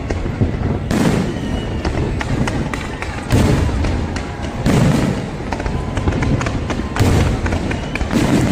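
Aerial fireworks bursting: five loud booms one to two seconds apart, with fast crackling pops between them.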